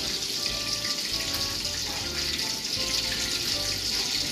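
Steady hiss of water running, with a knife slicing boiled pork on a plastic cutting board.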